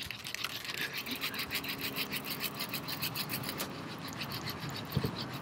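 Fishing reel being cranked to retrieve a cast lure, its gears giving a fast, even, rasping tick. A single low thump near the end.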